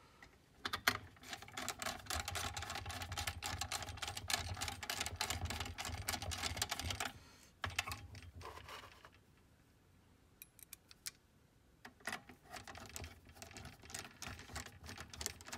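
Electric screw gun driving screws into a slide projector's housing: the motor runs with rapid clicking for about six seconds, then a shorter, fainter bout near the end.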